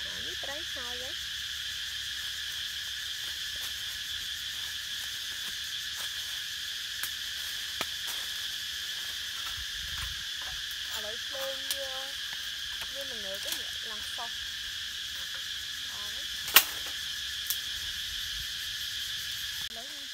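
Steady, shrill drone of a forest insect chorus, with a few sharp clicks or knocks over it, the loudest about three-quarters of the way through.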